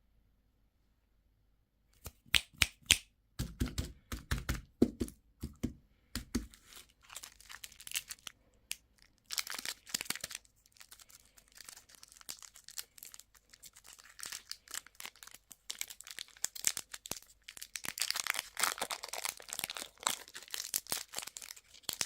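Candy and toy packaging being torn open and crinkled by hand. It starts about two seconds in with sharp clicks and knocks, followed by bouts of crinkling that are loudest near the end.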